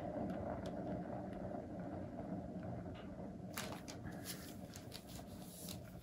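Paint-pouring turntable spinning a canvas fast, giving a steady whirring hum that eases slightly, with a few light clicks in the second half.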